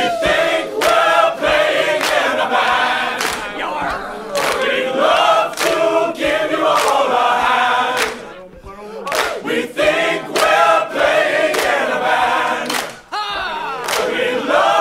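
Song with several voices singing together in chorus over a steady percussion beat, with a short break about eight seconds in.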